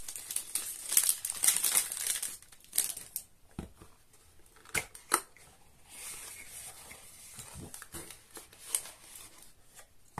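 Clear plastic wrap crinkling and tearing as it is pulled off a cardboard perfume box, followed by a few sharp knocks and rustles as the cardboard box and its inner insert are opened.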